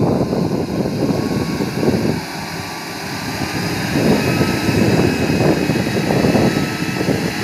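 Suzuki Gypsy's engine pulling under load as it drives through a waterlogged mud track, its wheels churning and splashing water. The sound eases off a little about two seconds in and grows louder again after about four seconds.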